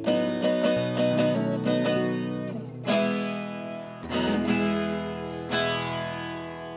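Acoustic viola caipira, the Brazilian folk guitar with doubled steel-string courses, played without a pickup: a handful of strummed chords and picked notes, each left to ring out and fade.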